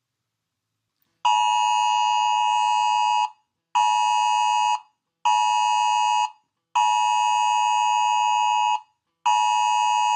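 Emergency alert attention tone of the kind phones sound for a Wireless Emergency Alert. It is a harsh, steady two-pitch tone that comes in a long-short-short pattern (one two-second tone, then two one-second tones, with half-second gaps), and the pattern repeats. It starts about a second in, after a short silence.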